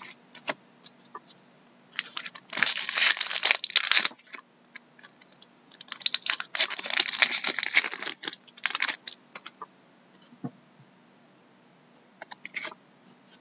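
Foil trading-card pack being torn open and crinkled in two loud bouts, with light clicks of the cards being handled between and after them.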